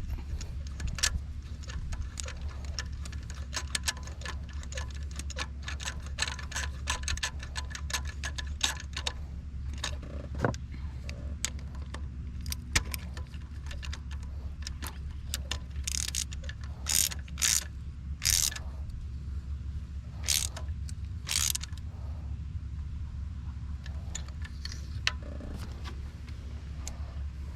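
Ratchet wrench and other hand tools at work on the engine: irregular clicks and metal clinks, with a run of short ratchet strokes in the second half, over a steady low hum.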